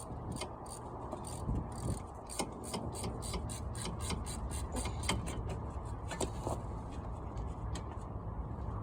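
Hand ratchet clicking steadily, about four to five clicks a second, as a hub mounting bolt is turned out; the clicking stops about six and a half seconds in.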